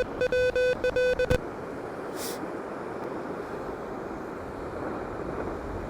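Morse code (CW) tones from an Elecraft KH1 transceiver, dots and dashes keyed on a single pitch, for about the first second and a half. These are followed by a steady hiss for the rest of the time.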